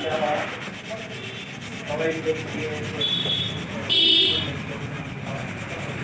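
Hand sanding of a scratched plastic motorcycle headlight lens (TVS): abrasive rubbing back and forth to take the scratches out. Two short high squeaks come about three and four seconds in, the second the loudest.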